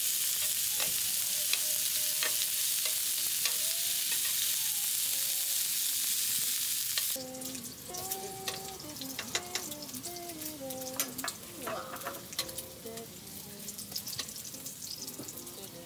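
Meat sizzling as it grills, loud and close for about seven seconds, then dropping suddenly to a quieter sizzle with scattered small clicks.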